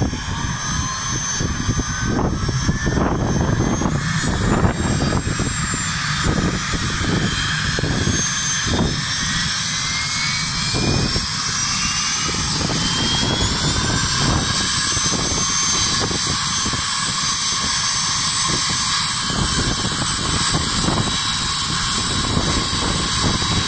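Airplane engines running over a steady rush of noise, with a whine that rises in pitch over the first dozen seconds and then holds steady.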